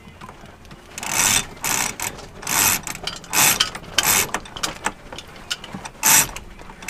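Sailboat jib-sheet winch ratcheting in short bursts as the sheet is hauled in after a tack, about seven pulls, with a pause before the last.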